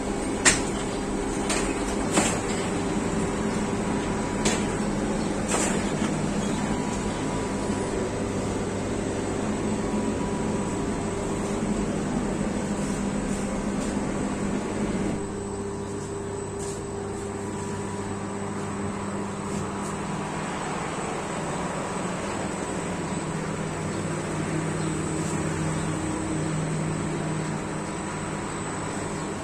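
Steady hum of bakery machinery, with a few sharp knocks in the first several seconds. The hum drops in level and changes about halfway through.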